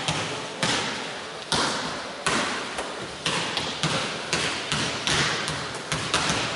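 Basketballs bouncing on a hardwood court: irregular thuds, several a second at times, each ringing out in the echo of a large sports hall.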